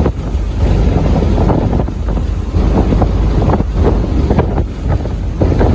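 Wind buffeting the microphone in irregular gusts, a loud low rumble.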